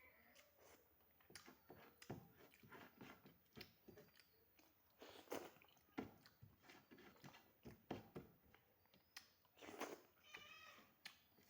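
Close-up eating sounds: soft chewing, lip smacks and small mouth clicks while eating rice and fried vegetables. Near the end comes a short, high, wavering pitched call.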